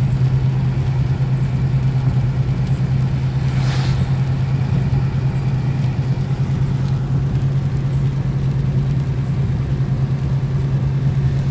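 Car driving on a wet road, heard from inside the cabin: a steady low drone of engine and tyre noise, with a brief swish about four seconds in.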